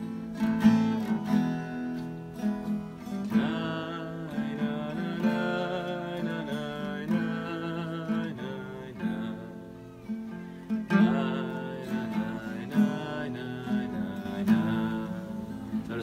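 A man singing a wordless melody while strumming chords on an acoustic guitar.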